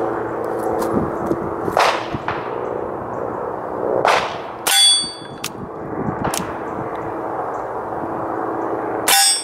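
Two muffled shots from a suppressed Nagant M1895 revolver firing subsonic rounds. Each shot is almost covered by the ringing clang of the bullet slamming a steel target, about halfway through and again near the end. The steel is louder than the gun. A steady low hum runs underneath.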